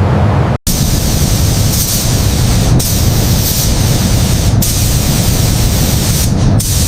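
A loud, steady hissing spray, broken by short cuts about every two seconds.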